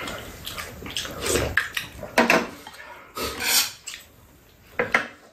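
Close-up eating sounds: slurping and chewing come in irregular bursts, and spoons and chopsticks clink against ceramic bowls a few times.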